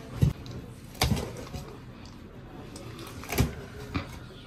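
Heavy cleaver chopping beef cheek meat on a thick wooden chopping block: four solid chops, two close together near the start, then a pause of about two seconds before two more.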